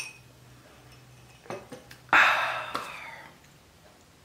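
A single loud breathy exhale about two seconds in, fading over about a second, after a sip of a drink. A couple of faint clicks come just before it.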